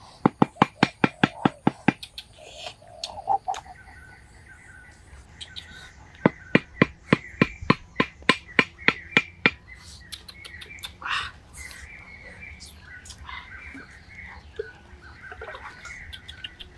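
Quick, even chopping strikes, likely a knife on a wooden board, in two runs of about five strokes a second: a short run at the start and a longer one from about six to nine and a half seconds in. Birds call in the background, more clearly in the later part.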